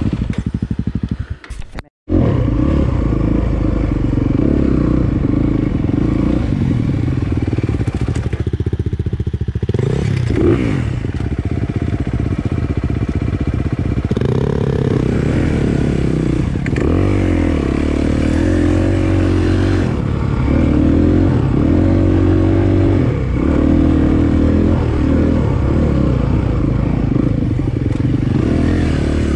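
Dirt bike engine running on a trail ride, its pitch rising and falling as the throttle opens and closes. The sound cuts out briefly about two seconds in.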